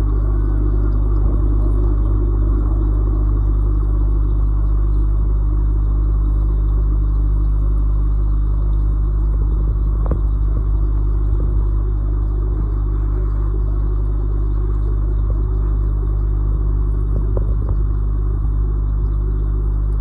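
Steady low electric hum with a hiss, from running aquarium equipment, with a few faint taps near the middle.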